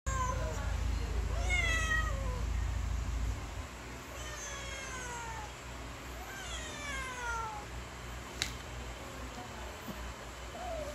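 Domestic cats meowing to be fed: a series of long meows, each falling in pitch, about every two seconds. A single sharp click sounds about eight seconds in.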